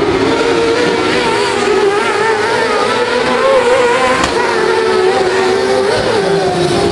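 Several autocross sprint-car engines running together as the cars race through a bend, their pitches wavering up and down as the drivers come on and off the throttle.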